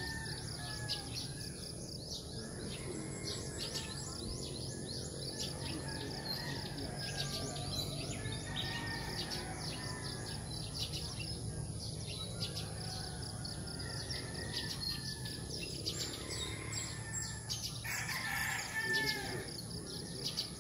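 Morning countryside ambience: small birds chirping steadily throughout, with roosters crowing, one crow louder near the end.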